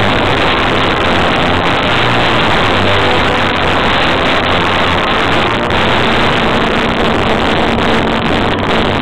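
Loud, harsh, even noise that swamps the music, starting and stopping abruptly. It is typical of a camera microphone overloaded by a loudspeaker close overhead.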